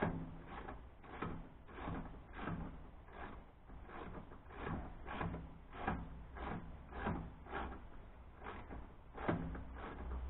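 Hand work on the exhaust pipe joint under a Datsun 240Z while removing the muffler: a rasping, scraping stroke repeated steadily about twice a second.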